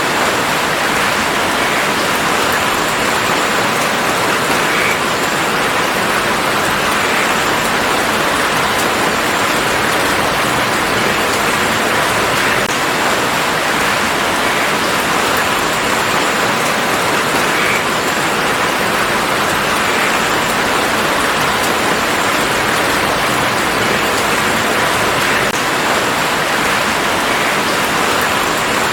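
Steady rain falling in a garden, a dense even patter with a few faint separate drops.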